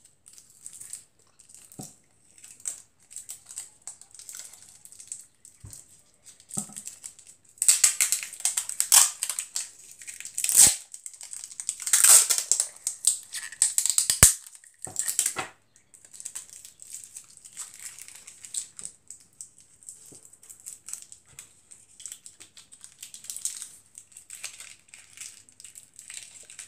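Paper and sticky tape being handled: crinkling and rustling, with a louder run of crackly rustling bursts in the middle and a couple of sharp clicks.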